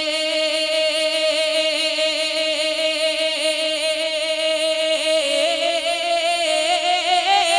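A male naat reciter holding one long sung note with vibrato, unaccompanied, the pitch lifting slightly near the end.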